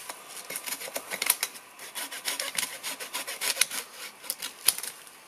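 Hand saw cutting through a tree limb, with quick, uneven rasping strokes.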